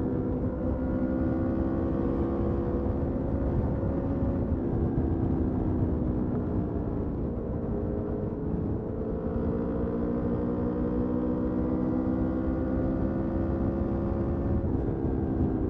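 Motorcycle engine running under way, its pitch rising slowly as the bike gathers speed. The pitch drops back about eight seconds in and again near the end, as with a gear change or easing off the throttle, over a steady low rumble.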